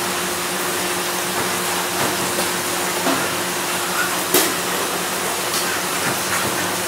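Heavy rain falling steadily on a metal roof, a dense even hiss, with a faint steady low hum underneath and one sharp click about four seconds in.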